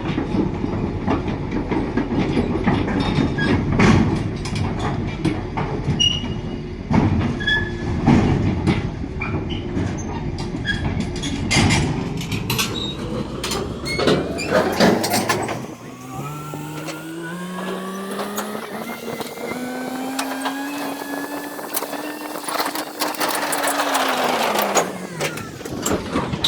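Heavy machinery being loaded: many metal clanks and knocks over an engine rumble, then an engine note that rises steadily, holds for several seconds and falls away near the end.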